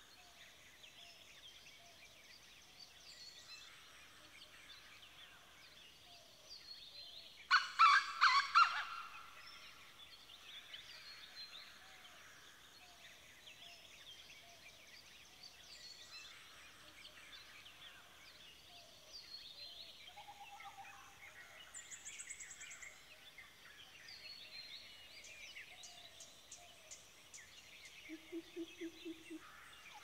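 Many wild birds singing and calling at once in early-morning birdsong. About seven and a half seconds in, one loud, fast stuttering call lasts a second and a half. Near the end comes a short, low pulsed call.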